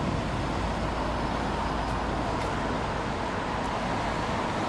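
Steady city road traffic: cars driving past on a wide multi-lane road, an even hum with no single loud event.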